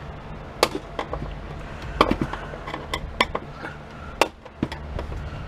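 Sharp, irregular metal knocks and clicks of a screwdriver being struck and worked against brass bushings in an electric typewriter's frame to knock them out: four louder knocks about a second apart, with lighter taps between.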